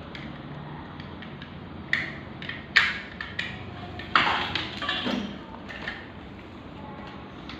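Printer and packaging being handled during unboxing: a few sharp clacks and rustles, loudest about three and four seconds in.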